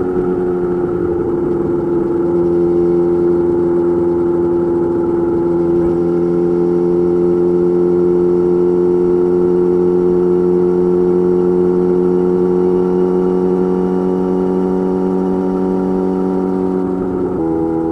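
Yamaha YZF-R6 inline-four engine running under way through an M4 GP slip-on exhaust, holding a steady note whose pitch climbs slowly. The note changes abruptly near the end.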